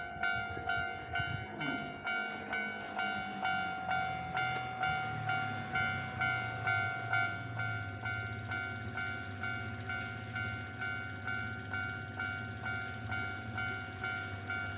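Japanese railway level-crossing alarm ringing its electronic bell tone over and over, about two strikes a second, signalling that a train is approaching and the barriers are down.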